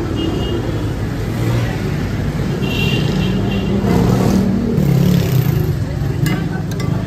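Busy street ambience: a steady low rumble of motor traffic, with people talking in the background and a few sharp clicks near the end.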